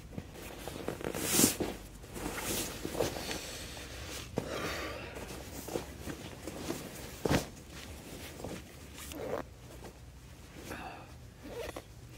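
Sleeping bag being unzipped and climbed into: several zipper runs and rustling of its nylon shell, with a few louder rasps.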